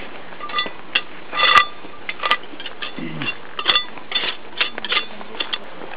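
A small metal hand tool scraping and clinking against stone paving slabs as soil is cleaned out of the joints, in short irregular strokes, about a dozen in all.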